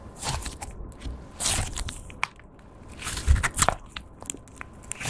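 Slime being squeezed and stretched by hand, giving sticky crackles and pops in several short bursts, the loudest about three and a half seconds in.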